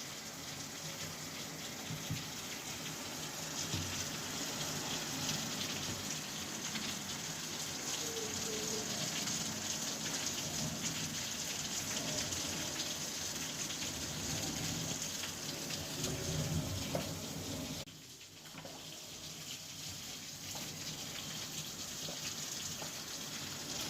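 Steady rushing of floodwater, an even hiss of flowing water; it drops out abruptly about eighteen seconds in and comes back a little quieter.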